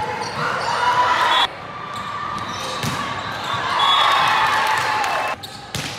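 Live sound of an indoor volleyball rally: players calling and shouting, with sharp ball hits echoing around the gym. The sound cuts off abruptly twice where one rally clip changes to the next.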